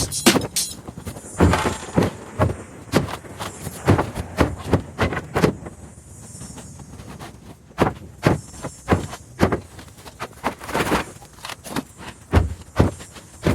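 A series of irregular knocks and clatters, about one or two a second, some sharper and louder than others.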